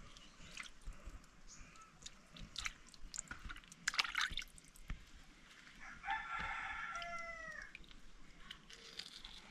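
Water sloshing and dripping as fish are handled and cleaned in a plastic basin of water, with scattered wet clicks and splashes. A rooster crows once about six seconds in, a call of nearly two seconds that drops in pitch at the end.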